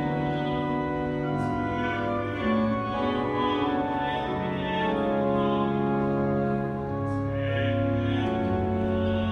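Mexico City Metropolitan Cathedral's pipe organ playing slow, held chords, the bass notes shifting every second or two.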